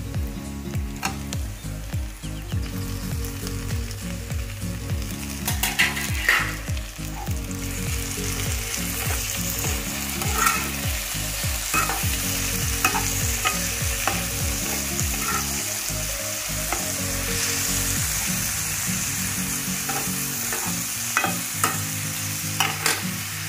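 Chopped onions and tomatoes sizzling in hot oil in a non-stick kadhai, stirred with a steel spatula that scrapes and clicks against the pan. The sizzle grows stronger about a third of the way in.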